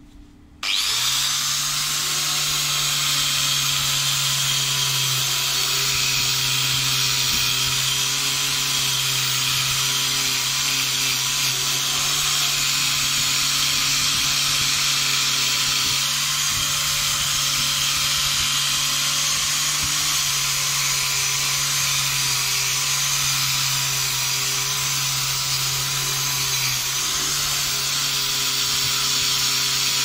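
Makita angle grinder fitted with a copper-coloured crimped wire cup brush, starting up about half a second in and then running steadily with a constant whine as the brush scrubs rust off a threaded steel rod.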